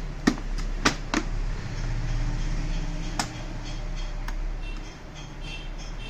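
A handful of sharp plastic clicks and taps as a gear is worked loose from a Brother laser printer's paper tray, over a steady low hum.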